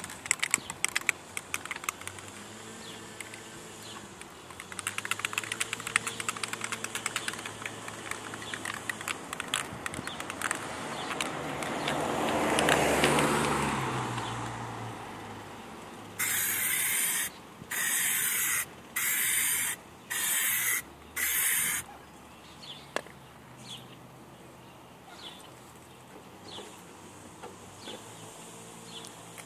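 An aerosol can of Plasti Dip is shaken, its mixing ball rattling in quick clicks. A rush of noise swells and fades. Then five short spray bursts of about a second each hiss on and off in quick succession.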